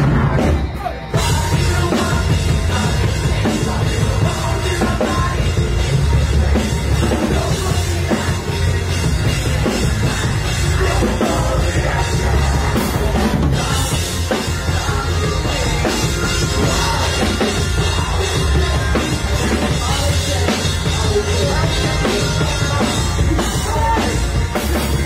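Live rock band playing loud, with drums and bass guitar, after a brief drop the full band comes in about a second in and keeps going steadily.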